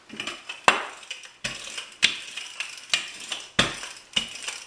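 Wooden rolling pin being rolled back and forth over pizza dough on a kitchen countertop. A series of sharp wooden knocks comes every half second to second with each stroke.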